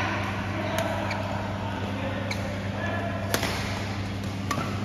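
A badminton shuttlecock struck back and forth with rackets in a rally: four sharp hits about a second apart, the loudest a little past the middle, over a steady low hum.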